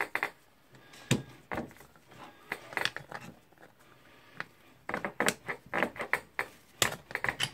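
The greased pusher piston of a Masterfix X Grip tool being worked back and forth by hand, giving short irregular clicks and knocks, a quick run of them in the last few seconds.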